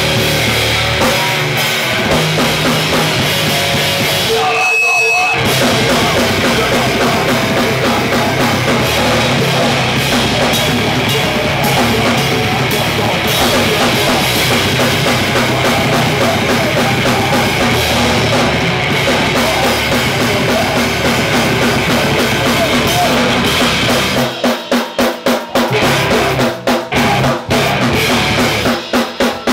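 Live hardcore punk band playing loud, with distorted electric guitars, bass, drum kit and screamed vocals. About four seconds in the band stops for about a second, with a single high ring in the gap. From about 24 s it plays stop-start hits with short silences between.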